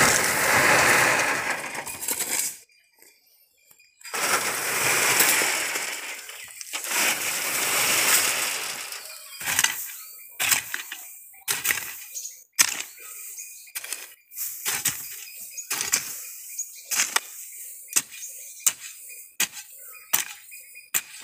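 Soil pouring down through a wire-mesh sieve in two long, hissing pours with a short gap between. Then a hoe chopping into a heap of soil, sharp strikes about one or two a second.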